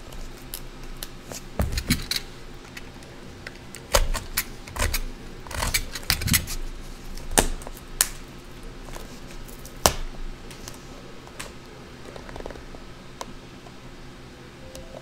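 Scattered clicks, taps and short scrapes of fingers working at a tight-fitting cardboard trading-card box that won't open. The loudest knocks come about four, six and ten seconds in.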